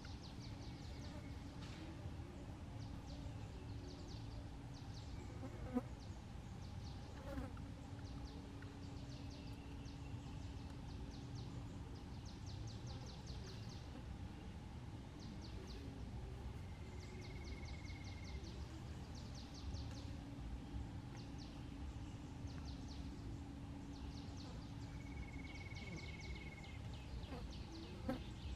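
Insects chirping in short, rapid pulsed bursts that repeat about once a second, over a steady low hum that breaks off and resumes a few times. A few soft knocks come through, around six and seven seconds in and again near the end.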